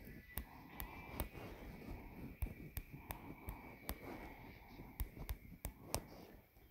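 Irregular sharp clicks and light taps, a few a second, over a faint low rustle and a faint steady high tone.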